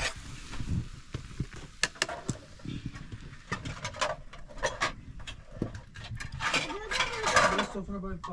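Metal utensil clinking and scraping against a cooking pan: a string of sharp, uneven knocks that grows busier about two-thirds of the way through.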